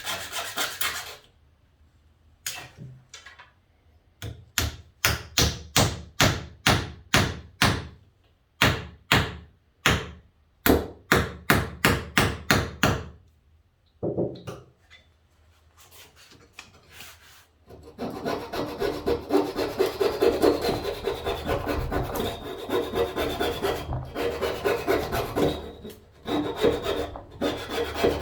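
Hand tool rasping on wood where dowel plugs have been glued into the old hinge screw holes in a door. First comes a run of separate back-and-forth strokes, about two a second. After a short pause, about ten seconds of fast, continuous rubbing and rasping follows.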